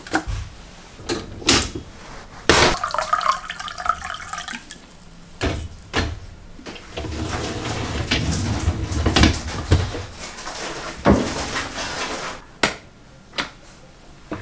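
Dishwasher handling clatter: sharp knocks and clacks from the racks and door. A few seconds in, liquid is poured into a glass for about two seconds (a cup of vinegar for cleaning the machine), and around the middle the rack rolls on its runners.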